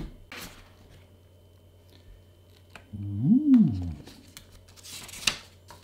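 Cardboard packaging being handled: a short scrape as the inner box slides, and a papery rustle near the end as the lid and leaflet are moved. Midway comes a hum of about a second that rises and falls in pitch.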